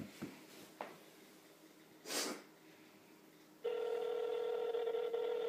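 Telephone ringback tone of an outgoing call ringing at the other end: one steady ring about two seconds long starting about three and a half seconds in, four seconds after the previous ring. A short hiss comes about two seconds in.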